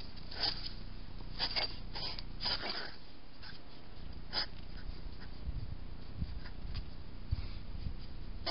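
Two European hedgehogs fighting, with short sharp huffs and snorts and scuffling on paving, most of them in the first three seconds. A few dull low knocks follow later on.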